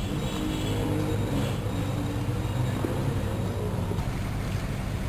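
Steady low outdoor background rumble, with faint short tones in the first couple of seconds.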